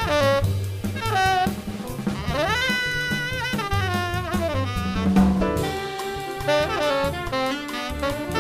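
Live jazz octet playing: a saxophone line runs up and then steps back down over a swinging drum kit with rimshots and walking bass.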